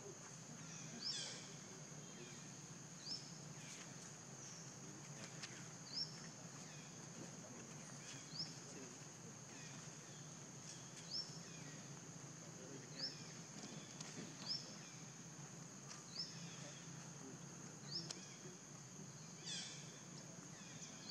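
Faint forest ambience: a steady high-pitched insect drone, with short rising bird chirps every second or two.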